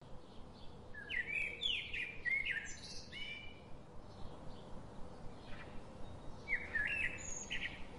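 Small birds chirping in quick runs of short, rising chirps, one cluster about a second in and another near the end, over a steady background hiss.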